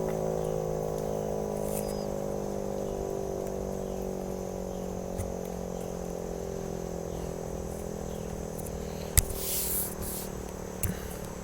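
1942 Federal Electric Model 5 siren winding down after its test: a steady tone slowly falling in pitch and fading as the rotor coasts. A brief rustle with sharp clicks comes about nine seconds in, and another click near the end.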